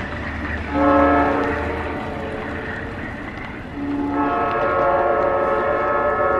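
Train air horn sounding a chord of several notes in two blasts: a short one about a second in and a longer one starting about four seconds in.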